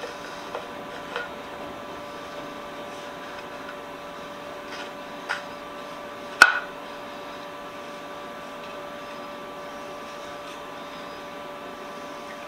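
Steady machine hum with a few faint pitched tones, broken by scattered light knocks and clicks as the waxed wooden vise jaw and its wooden screw are handled; the sharpest click comes about six and a half seconds in.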